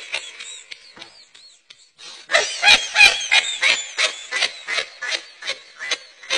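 High-pitched laughter in a long run of short bursts, about three a second, starting about two seconds in and slowly fading.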